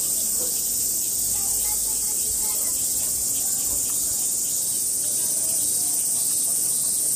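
A loud, steady, high-pitched chorus of summer cicadas that does not let up, with faint distant voices beneath it.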